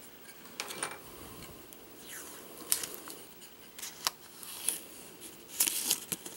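Plastic film being picked at and peeled off by fingers: scattered small clicks and crinkles, with a brief rustle partway through and a quick run of louder crackles near the end.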